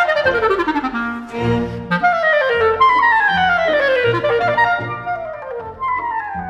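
Solo clarinet playing a string of fast downward scale runs in a virtuoso passage, over short, repeated chords from a string orchestra.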